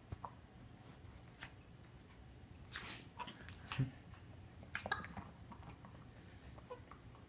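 Puppy playing with a rubber chicken toy on a tile floor: scattered light taps and knocks of claws and the toy on the tiles, with a short hiss about three seconds in and the loudest knocks near four and five seconds in.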